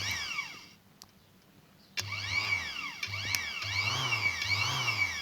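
Sewing machine's electric motor, run in short spurts through the foot pedal: its whine rises and falls with a low electrical hum. It stops for about a second, then runs again from about two seconds in.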